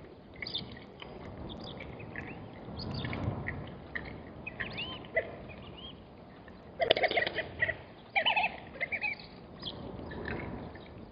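Wild birds calling and chirping in short, scattered notes, with a louder burst of rapid repeated calls about seven seconds in, over low wind rumble on the microphone.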